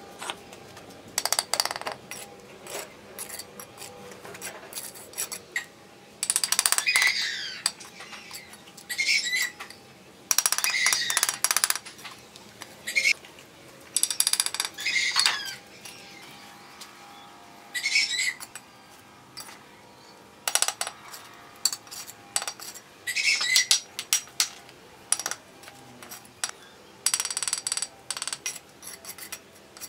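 Steel bricklaying trowel scraping and spreading cement mortar on hollow red clay bricks, with clinks and taps as bricks are set and tapped into place. The strokes come in irregular runs of about half a second to a second and a half.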